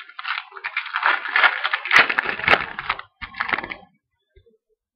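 Wrapper of a pack of 2006 Legends football trading cards crinkling and crackling as it is torn open, for about three seconds, then a short second rustle.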